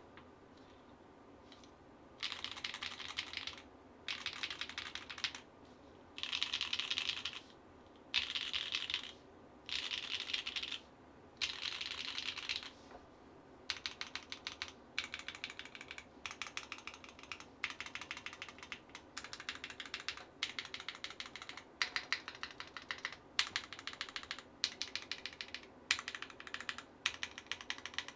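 Geonworks F1-722 mechanical keyboard with Sillyworks x Gateron Slay Type A switches on an aluminium plate, typed on. About two seconds in, dense bursts of fast keystrokes begin, each a second or so long with short pauses between; from about halfway the keystrokes come as a steadier stream of separate clicks.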